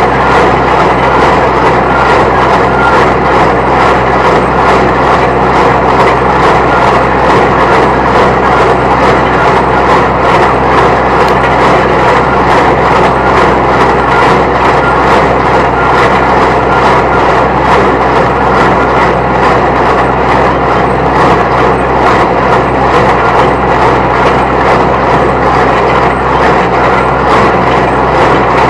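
New Holland T1510 compact tractor's diesel engine running steadily under load, driving a New Holland 269 Hayliner square baler through the PTO, with the baler's mechanism knocking in a fast, even rhythm.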